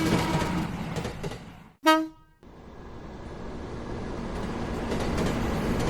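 A train horn sounds and fades, followed by a second short, loud horn toot about two seconds in. After a brief gap, the running noise of a train swells up and holds steady.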